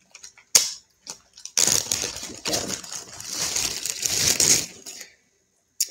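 Packaging crinkling and rustling for about three seconds as it is handled and opened, after a single sharp click about half a second in.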